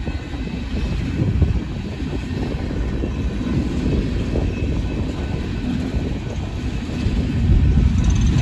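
Empty coal cars of a freight train rolling past on the track: a steady rumble and clatter of steel wheels over the rails, a little louder near the end.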